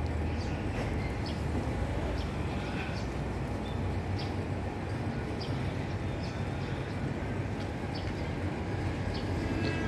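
Low, steady rumble of a diesel passenger train approaching slowly from a distance, with faint scattered ticks over it.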